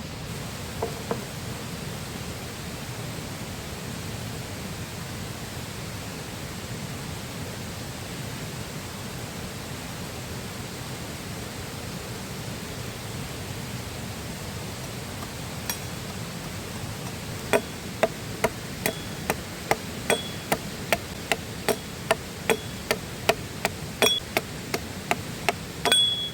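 Steady rush of a flowing river. In the last nine seconds, a run of sharp, evenly spaced strikes, about two a second, each with a slight ring, as if a tool is hammering or chopping.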